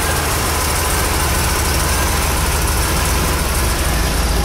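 1965 Corvette's 327 cubic-inch, 350 hp small-block V8 idling steadily, a low even rumble that grows a little louder near the end.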